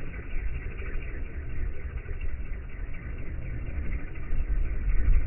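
Wind buffeting the microphone: an uneven, gusting low rumble with a faint steady hiss above it.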